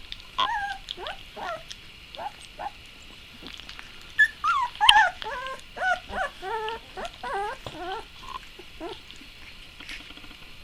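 A dog whining and yipping during play: short, high cries that bend up and down. A few come spaced out at first, then a quicker run of them in the middle.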